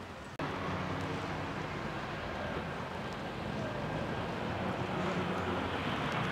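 Steady outdoor city noise with a low engine hum, starting abruptly about half a second in.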